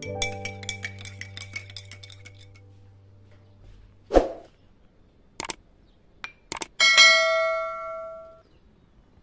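Background music with a ticking beat fades out, then the sound effects of a subscribe-button animation play: a whoosh, a few mouse clicks, and a bell ding that rings out for about a second and a half.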